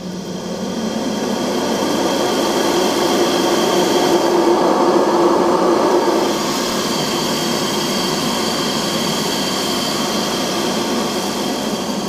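Sauber Excellence canister vacuum cleaner running, its floor head pushed over carpet and sucking up fine sand and dust. The suction noise builds over the first two seconds and eases off slightly about six seconds in.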